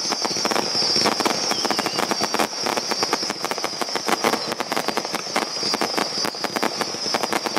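Fireworks going off in rapid succession: a dense, continuous run of sharp crackling pops as many shells and rising comets fire at once.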